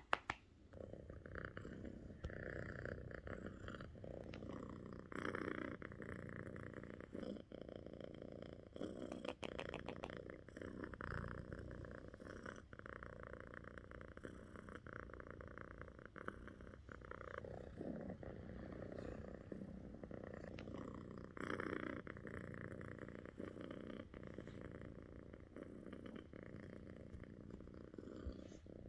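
Domestic cat purring steadily, recorded close up against its fur.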